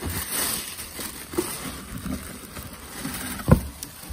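Plastic packing wrap rustling and crinkling as a hand digs through a cardboard box, with small clicks and one loud thump about three and a half seconds in.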